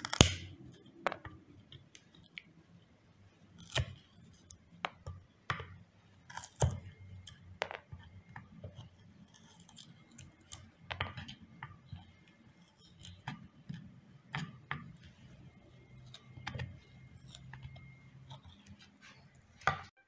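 Wood chisel worked by hand, paring away the waste wood to smooth the bottom of a shallow drilled recess in a board: irregular scraping cuts and clicks, one every second or two.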